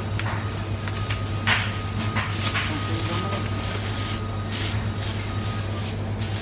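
Thin plastic produce bags rustling and crinkling in several short bursts as they are opened and filled with fruit, over a steady low hum.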